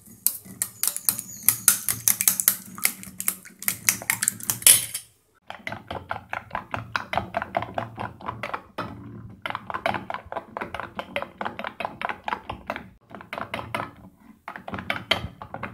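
Eggs with chopped onion and tomato beaten by hand in a stainless steel bowl: the utensil clicks against the bowl in fast, steady strokes, with short pauses about five and thirteen seconds in. The mix is being beaten until frothy.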